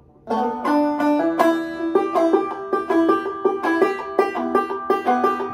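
Gold Tone five-string banjo played clawhammer style, slowly: a double-thumbed passage in which the fifth-string drone is popped again and again between melody notes, with brushes and skipped strikes. The notes start about a quarter second in and run on as a steady picked rhythm.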